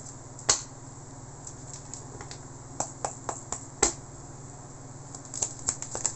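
Tarot card deck handled and shuffled by hand: separate light clicks and snaps of the cards, coming quicker near the end, over a steady low hum.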